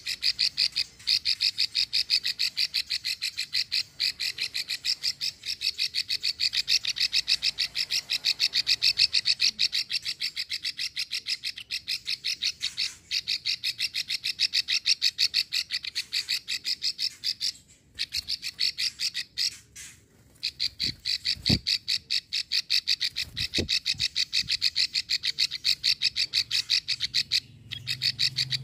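Female plain prinia (prenjak sawah) giving its long 'klik' rattle: runs of rapid, dry, evenly spaced clicks, about six a second, broken by a few short pauses. This long female rattle is the call used to draw out a male's song.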